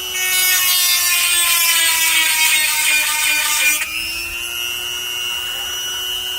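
Seesii 180W electric chainsaw sharpener running at its lowest speed, its grinding stone held against a saw-chain tooth for about four seconds with a hissing grind while the motor slows slightly under load. The grind cuts off suddenly and the motor picks back up, running free.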